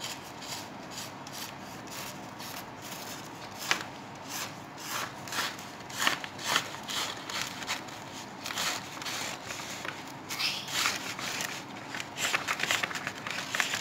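Pen drawing on black chart paper: the tip scratching and rubbing across the card in short, irregular strokes.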